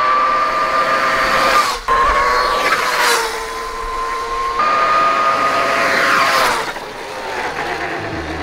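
Electric dirt bike running past, its QS138 motor and controller giving a steady, high-pitched electric whine. The pitch shifts abruptly a few times and sweeps down as the bike passes.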